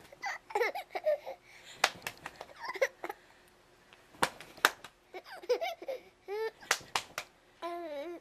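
A young baby laughing and squealing in short, wavering bursts, with a longer high coo near the end, as he is played with and tickled. Several sharp clicks come between the bursts.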